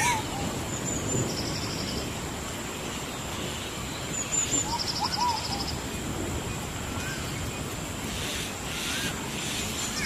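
Outdoor ambience of birds calling with short whistled notes that rise and fall, a few times, over a steady hiss. A fast high trill sounds twice, and a thin high tone holds steady throughout.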